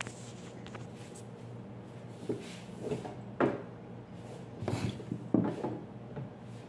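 Kitchen knife knocking on a cutting board as a vegetable is cut: a handful of irregular knocks through the second half, over a steady low hum.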